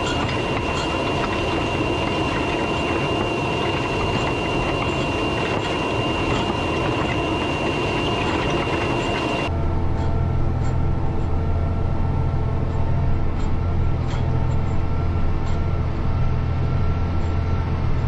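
A John Deere tractor pulling a Claydon Hybrid seed drill across a tilled field. At first the sound is heard from the drill: a rough, steady rumble and rattle with a steady high whine over it. About halfway through it switches to inside the tractor cab, where the engine's steady low drone is the loudest thing.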